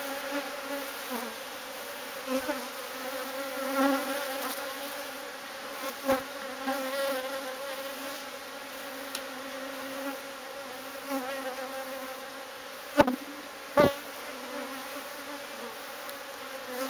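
Honey bees buzzing around their opened hive, a steady hum that wavers in pitch. A few sharp knocks sound over it, the loudest two close together near the end.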